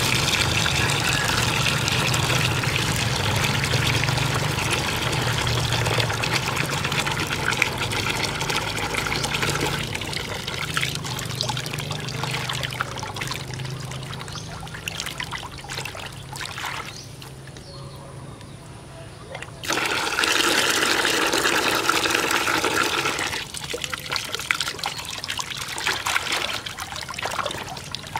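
Water poured from a kettle into a plastic basin, a steady splashing stream that stops about ten seconds in. After that a hand swishes and stirs the water in the basin, small irregular splashes, with a louder stretch of splashing about twenty seconds in.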